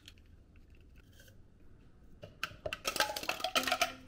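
Kitchen clatter of making an iced drink: after a quiet start, a quick run of clicks and clinks of hard objects begins about two seconds in, some with a short ring like glassware.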